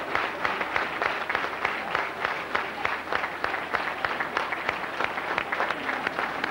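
A crowd clapping in time, a steady beat of a few claps a second, over the murmur of a large audience.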